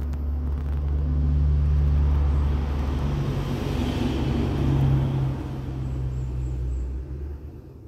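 Rustling and rubbing of the phone brushing against a kitten's fur, over a loud, steady low rumble; the noise swells in the middle and fades near the end.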